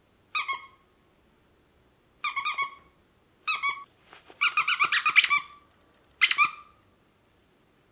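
Squeaker inside a plush monorail dog toy squeezed about five times in short squeaks, with a longer run of quick squeaks about halfway through.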